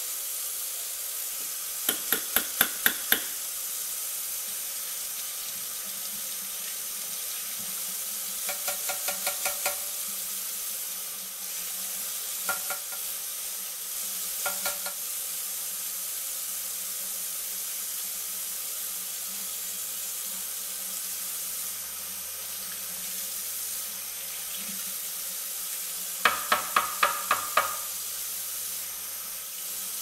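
Kitchen tap running steadily into a ceramic sink as a Dyson V8 pre-filter is washed under it. Several bursts of about half a dozen quick knocks, near the start and again near the end with a few fainter ones between, as the plastic filter is tapped against the sink to shake out debris.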